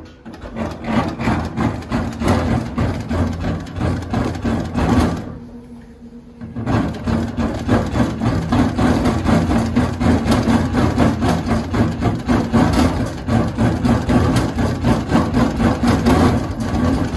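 JUKI LG-158 double-needle walking-foot lockstitch machine sewing through eight layers of denim at high speed: a rapid, even stitch-by-stitch knocking over a motor hum. It stops briefly about five seconds in, then runs on. A chain under the table is knocking against something, which the operator says needs adjusting.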